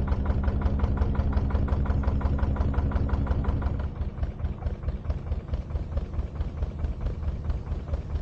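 Narrowboat engine running with an even, rapid beat as the boat cruises. About four seconds in it becomes quieter and the steady low hum under the beat drops away.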